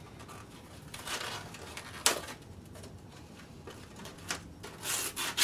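Handling noises from sanding blocks turned over in gloved hands: short rustling scrapes, a sharp click about two seconds in, and more rustling near the end.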